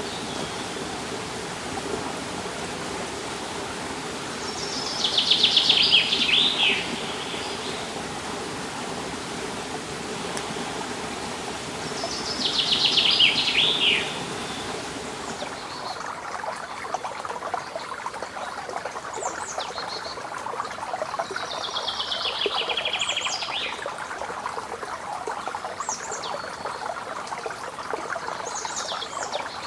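A songbird singing three loud trilled phrases, each about two seconds long and falling in pitch toward the end, with a few short high calls in between. Under it runs a steady rush of flowing water that turns rougher and closer about halfway through.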